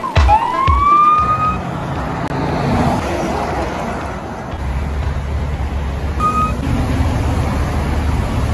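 Freeway traffic rushing past, with a short rising siren whoop near the start and a brief steady siren-like tone about six seconds in; a low rumble from passing vehicles fills the second half.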